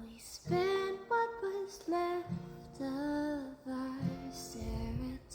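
A woman singing a slow, soft melody in long held notes over acoustic guitar, with a low strum or pluck about every two seconds.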